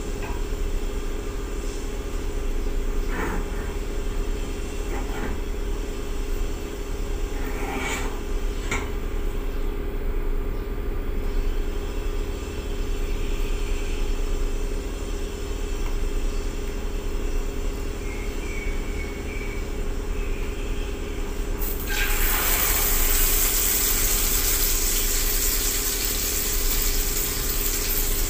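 Short clinks of a utensil against a ceramic bowl over a steady low hum; about 22 seconds in, a loud continuous sizzle starts suddenly as egg-dipped eggplant goes into hot oil in the frying pan.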